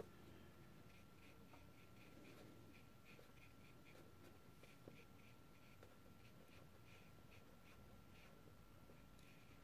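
Near silence with faint, quick strokes of a watercolour brush on paper, about three a second, over a faint steady high tone.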